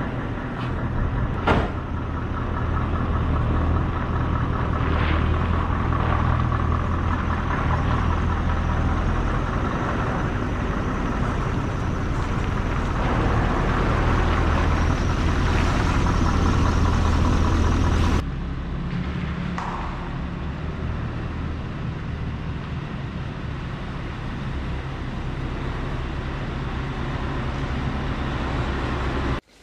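Heavy lorry's diesel engine running steadily, with one short sharp noise about a second and a half in. About eighteen seconds in, the sound changes abruptly to a quieter engine drone.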